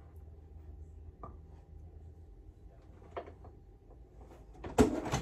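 Handling of a hard-shell guitar case as an electric guitar is lifted out of it: a few faint clicks, then a sharp knock near the end, over a steady low room hum.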